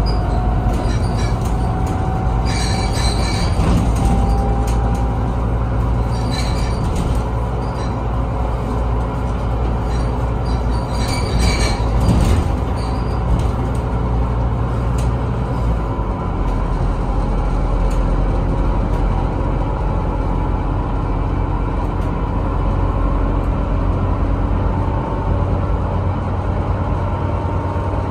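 Inside a Scania Citywide LFA articulated city bus: a steady low engine drone with running noise. Short high-pitched squeaks come three times in the first half, and the low drone changes pitch about halfway through.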